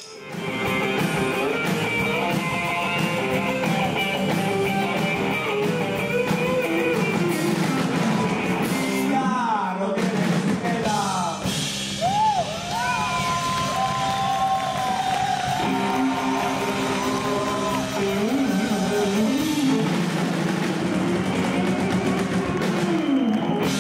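Rock song: male voices singing over electric guitar and drums.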